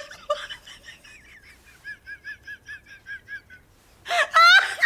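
A woman laughing helplessly: a run of quiet, squeaky, wheezing giggles, about four or five a second, then a loud burst of laughter near the end.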